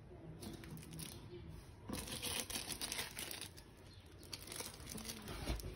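Plastic packaging crinkling and rustling as a large wrapped canvas is handled and moved, in small irregular crackles.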